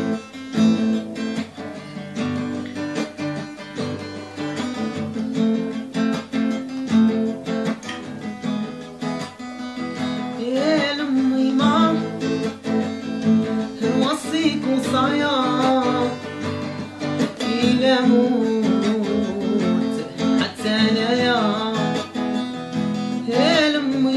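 Acoustic guitar playing a plucked and strummed introduction. From about ten seconds in, a man's voice sings a wavering melody over it in several phrases.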